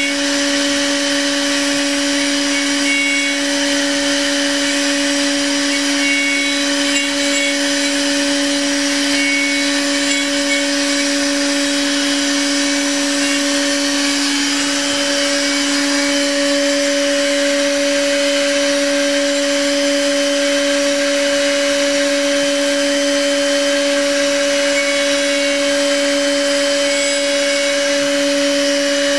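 CNC milling machine's spindle running an 8 mm end mill through a finishing cut: a steady whine made of two constant tones, an octave apart, over a continuous hiss of cutting and chips.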